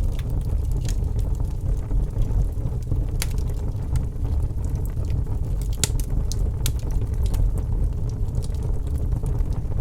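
Wood fire crackling in a fireplace: scattered sharp pops and snaps, a few a second, over a steady low rumble.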